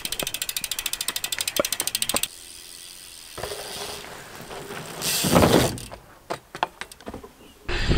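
BMX rear hub ratchet clicking rapidly and evenly as the bike coasts, for about two seconds. After a quieter stretch there is a loud rushing noise about five seconds in, then scattered clicks, and a loud low rumble just before the end.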